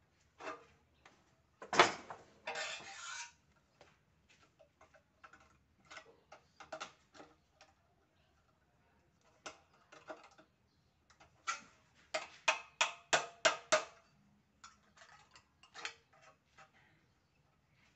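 Aviation snips and pliers working a thin light-gauge steel hollow section: scattered sharp metallic clicks and crunches. A loud crunching cut comes about two seconds in, and a quick run of about ten clicks comes around two-thirds of the way through.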